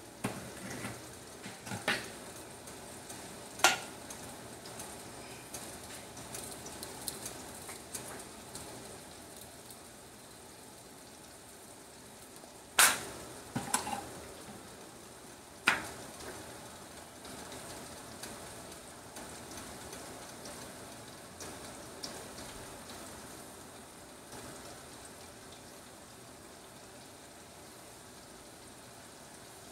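Food frying in a skillet, a steady sizzle, broken by a few sharp clicks and knocks: the loudest about halfway through, with others near the start and a little after the middle.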